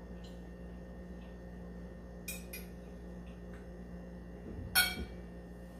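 A fork clinking against a plate a few times as food is taken up, the loudest clink about five seconds in, over a faint steady hum.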